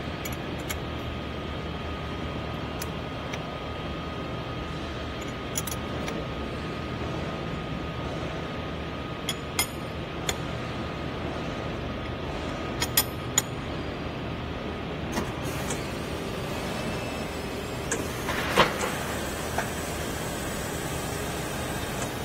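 Four-cylinder brake pad hot press running with a steady machine hum and a faint high whine, broken by a few sharp metallic clicks and knocks, the loudest late on.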